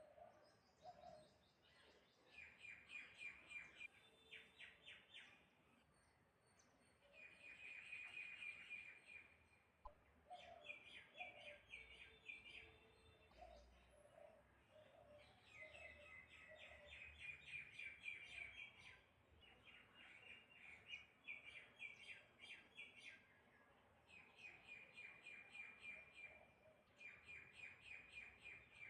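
Faint birdsong from several birds: bursts of rapid repeated chirps lasting a second or two, over and over, with softer short low notes in between.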